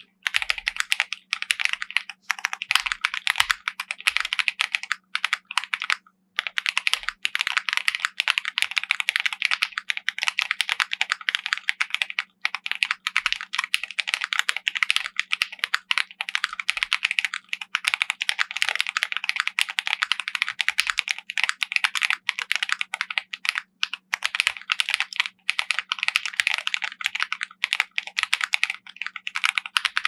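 Fast, continuous typing on a Mammoth75 75% custom mechanical keyboard built with a polycarbonate plate, PCB and case foam, SP-Star Soda switches and MODO Lite keycaps, with a brief pause about six seconds in.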